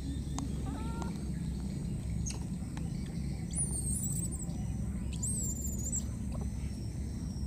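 Baby monkeys making short squeaky calls, with two higher, longer calls in the middle, over a steady low rumble.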